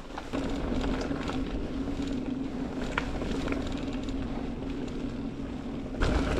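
Mountain bike rolling along a gravel trail: tyre noise and scattered small clicks under a steady hum. About six seconds in it gets louder as the bike speeds onto rougher dirt.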